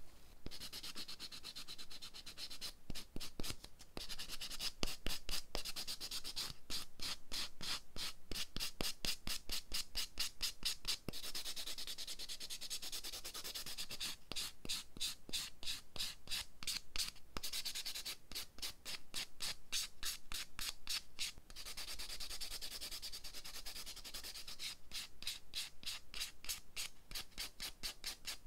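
Sponge nail buffer block scrubbed back and forth over an artificial nail tip in quick rasping strokes, several a second, in spells broken by short pauses. The buffing scratches the tip's surface so that gel grips it better.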